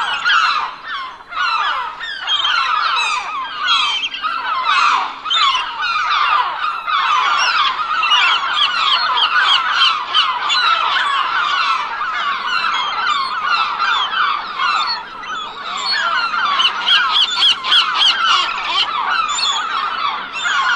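A flock of gulls calling all at once: many short, overlapping cries and squawks, many of them dropping in pitch, in a dense, unbroken chorus.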